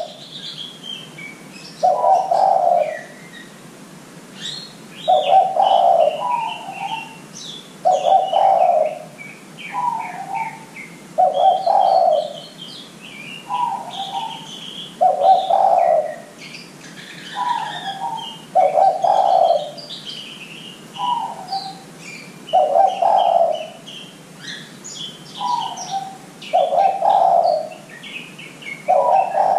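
Spotted dove (derkuku) cooing a repeated phrase: a long low coo and a shorter, slightly higher note, about every three and a half seconds. Small birds chirp faintly and higher in the background.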